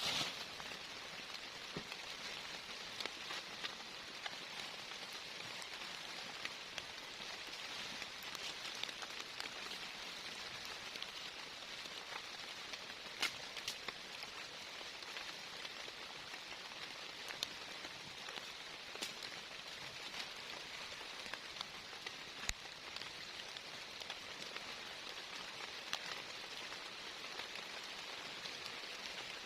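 Rain falling steadily, with scattered sharp single drop hits standing out from the even hiss.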